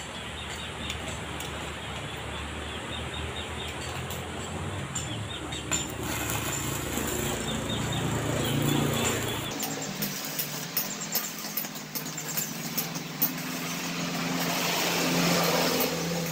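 Stick arc welding: the electrode arc crackling and hissing steadily. About ten seconds in, a steady low hum joins it.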